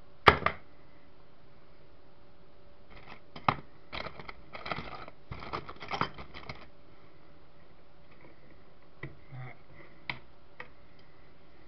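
A sharp knock, then a few seconds of clattering and rattling as small tools and parts are handled, followed by a few light clicks near the end.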